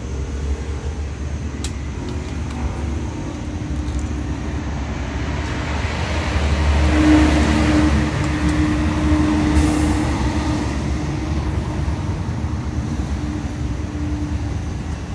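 Steady road traffic rumble, with a vehicle passing that swells to its loudest about halfway through, its steady engine hum fading away afterwards. A few faint knocks of a cleaver on a green coconut in the first seconds.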